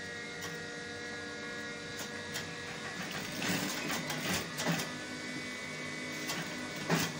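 EMEL industrial sewing machine running as fabric is stitched, a steady motor hum with a few short knocks of fabric handling in the middle and near the end.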